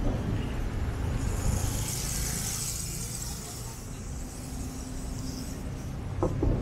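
Street traffic: a motor vehicle passes over a steady low rumble, with a hiss of tyre noise that swells and fades over a few seconds in the middle.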